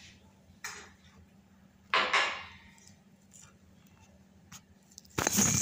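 Hands working cookie dough in a glass bowl of semolina: a few separate scrapes and knocks against the glass. The loudest is a rasp about two seconds in, and a louder clatter comes near the end.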